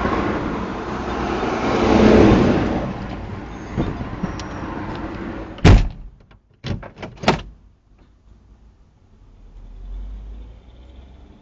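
Car noise swelling over the first few seconds, then a car door slammed shut about halfway through, followed by three or four quick clunks.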